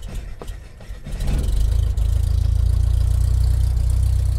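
Deep, steady low rumble that swells in about a second in and then holds: the opening rumble of the Mirage volcano show played through its loudspeakers.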